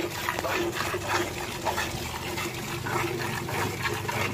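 Cow being milked by hand: squirts of milk hissing into the milk bucket in a steady rhythm, about two or three a second.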